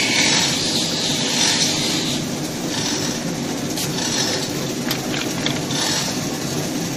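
Thermal paper cutting machine running with a steady mechanical hum and hiss. A few light clicks come about four to five seconds in.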